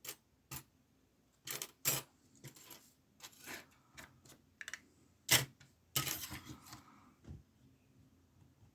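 Lock picks clinking and clattering against one another as they are sorted through and picked up: a string of light, separate metallic clicks, the loudest about five and six seconds in.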